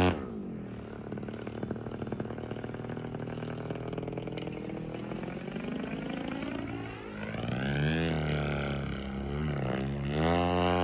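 Engine of a radio-controlled model airplane in flight. Its level drops suddenly at the start, and its note then sinks slowly in pitch. About 7 s in the note climbs again and wavers, then holds steady and louder near the end.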